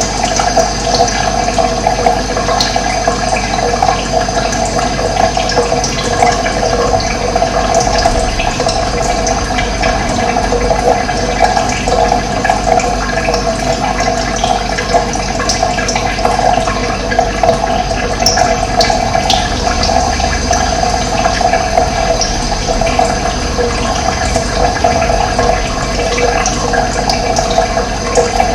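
Running water flowing steadily, a continuous gushing rush with no breaks.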